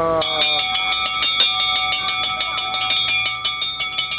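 A bell rung rapidly at a game booth, about five strokes a second with a sustained ring between them, signalling a prize win.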